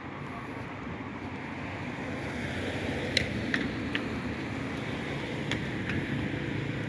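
Road traffic noise: a steady vehicle rumble that grows gradually louder, with a few short sharp clicks in the middle.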